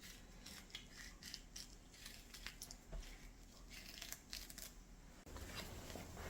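Faint scattered clicks and light rustling, with a low steady hum coming in about five seconds in.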